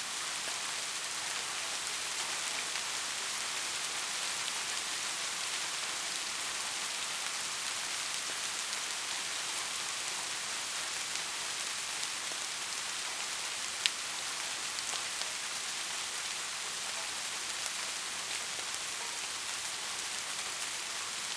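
Steady rain falling, an even hiss of drops on a surface with fine scattered patters, and one sharper drop tick a little after halfway.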